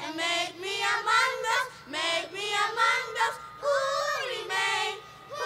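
Children singing a nasheed without instruments, in held, sliding phrases separated by short breaths.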